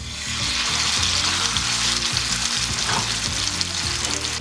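Whole marinated pomfret frying in hot oil on a dosa tawa, a loud steady sizzle that jumps up sharply as the fish goes into the oil.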